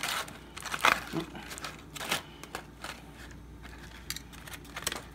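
Aluminium foil crinkling and metal kitchen tongs clicking as cooked meat is lifted out of a foil packet: irregular crackles and clicks, busiest in the first couple of seconds, then sparser.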